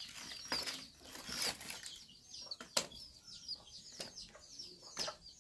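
Dry split firewood being handled and snapped by hand, giving several sharp cracks, the loudest a little past the middle. Small birds chirp over it in quick, short falling notes.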